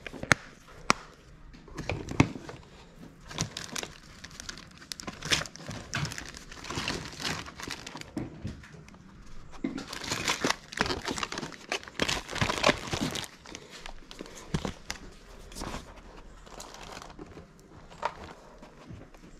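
Clear plastic bags and packaging crinkling and rustling as they are handled, in irregular bursts, with a few sharp clicks in the first couple of seconds.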